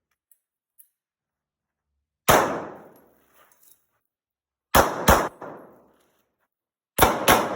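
Glock pistol shots: a single shot about two seconds in, then two quick pairs of shots, each crack ringing out briefly.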